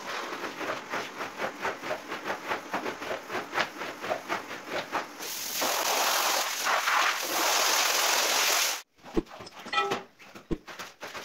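Rubber squeegee scraping over a soaked rug in rapid strokes, several a second, sped up by the time-lapse. Then a steady hiss of water spraying onto the rug, which cuts off abruptly about nine seconds in, followed by a couple of clicks and a brief chime.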